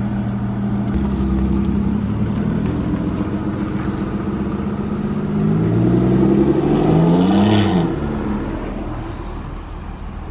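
Car engine running at idle, then revving up, its pitch rising to a peak about seven and a half seconds in and falling back, the sound then fading.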